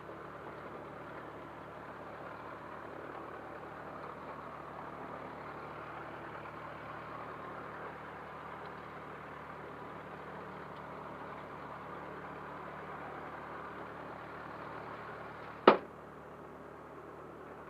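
Cessna 152's four-cylinder Lycoming engine and propeller droning steadily, heard inside the cockpit. A single sharp click near the end is the loudest sound.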